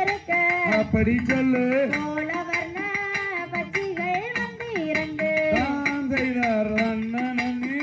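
Valli kummi folk song: a voice sings a melody with long, bending notes over a steady beat of sharp percussive hits.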